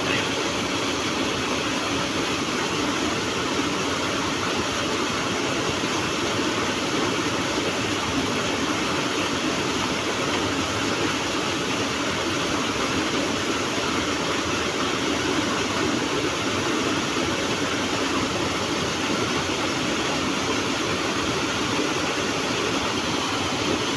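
Small waterfall pouring over boulders into a rock pool: a steady rush of falling water.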